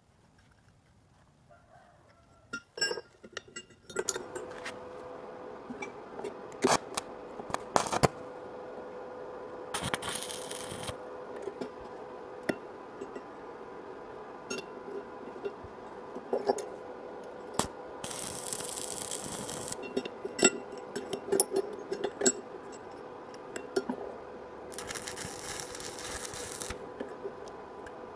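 Stick (arc) welding of steel fence parts: three short bursts of crackling arc hiss, each a second or two long, the tack welds. Between them come sharp metal clinks and taps as the steel pieces are handled, over a steady hum.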